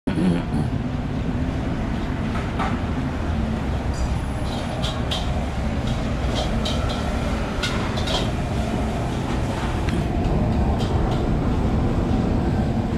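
Steady street traffic rumble, with scattered short clicks and clinks a few seconds in.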